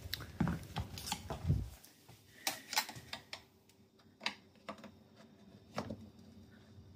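Irregular clicks, taps and a few dull knocks from hands working at a dishwasher's base to free it, the heaviest knocks in the first two seconds.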